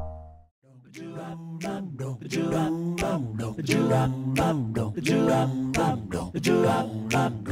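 A song with singing voices over a quick, steady beat, starting about a second in, after the tail of a sound effect dies away at the start.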